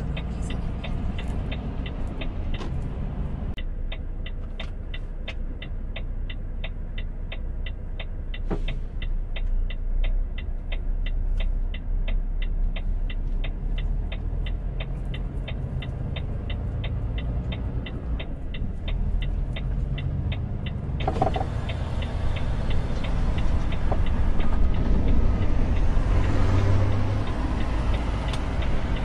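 Steady engine and road rumble inside a Volvo truck's cab under way, with a rapid even ticking of the turn-signal indicator, about two to three ticks a second.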